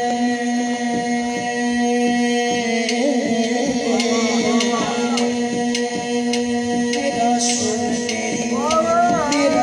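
Man singing a devotional naat into an amplified microphone, with winding, ornamented phrases, over a steady held drone and light, regular percussion taps.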